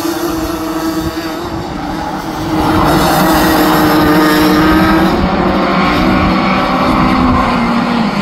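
Several Rotax Max 125 cc two-stroke kart engines running hard at once, overlapping engine notes that grow louder about two and a half seconds in as the pack comes closer. Near the end some notes drop in pitch as karts slow for a corner.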